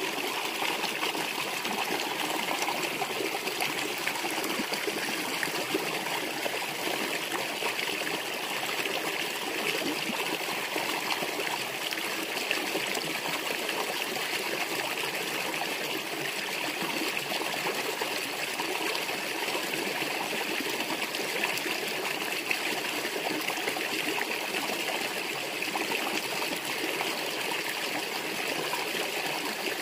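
Shallow rocky stream running over stones: a steady rush and trickle of flowing water, unchanging throughout.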